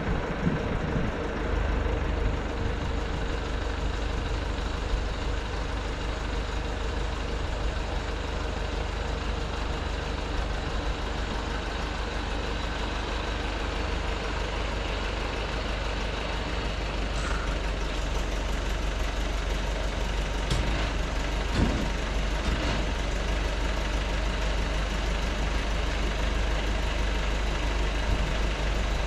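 Nissan Cabstar truck's diesel engine idling steadily, running the boom lift's hydraulics. A few light knocks come around two-thirds of the way through.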